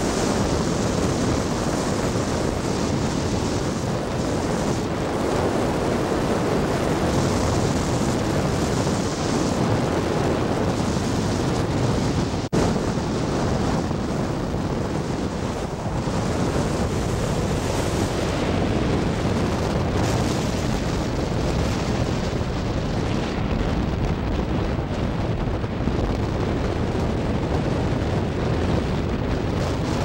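Steady rushing wind and road noise from a car driving along, with wind buffeting the microphone. There is one sharp click about halfway through.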